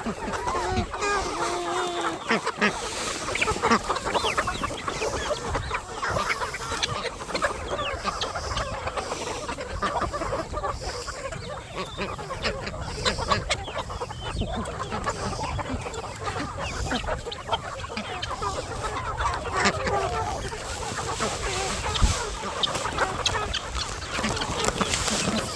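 A flock of chickens clucking and calling continuously, many birds at once with overlapping short calls.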